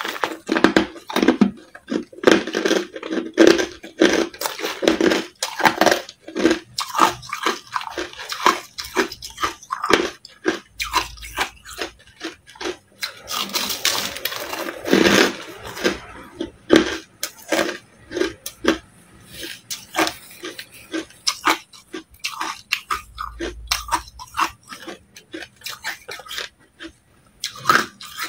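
A person biting and chewing crumbly white chunks of carbonated ice, a quick, close run of crunches throughout. About halfway through a large lump is bitten off and the crunching gets louder and denser.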